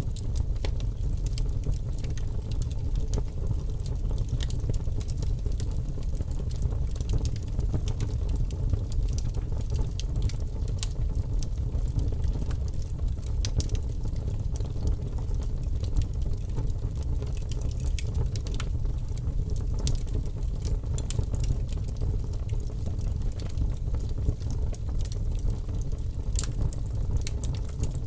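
Wood fire burning with large flames: a steady low rumble from the flames under scattered sharp crackles and pops.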